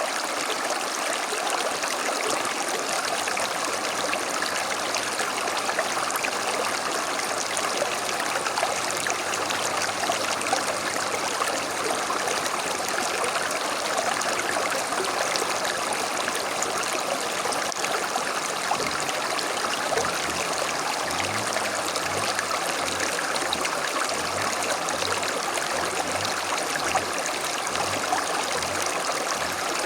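Creek water flowing steadily, an unbroken rushing babble with no change in level. From about two-thirds of the way in, a faint low pulsing repeats under it.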